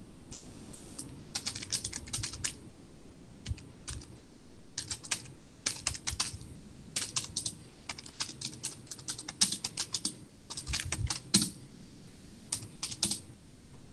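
Typing on a computer keyboard: irregular runs of quick keystrokes with short pauses between them.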